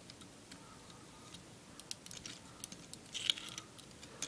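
Small scattered clicks and taps of a plastic action figure and its snap-on weapon being handled and posed, with a short cluster of clicks about three seconds in.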